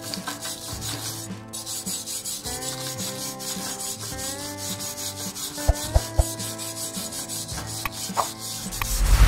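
Hand wire brush scrubbing a fresh stick weld bead on steel plate in rapid back-and-forth strokes, cleaning off the slag after welding. Two sharp knocks about six seconds in.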